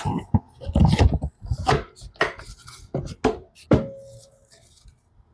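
A smartphone being handled on a hard surface: a series of sharp taps and knocks, heavier thuds around the first second, and a short steady tone about three and a half seconds in.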